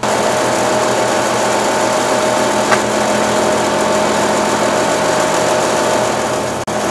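A loud, steady motor drone with several held tones, starting abruptly and cutting out for an instant near the end.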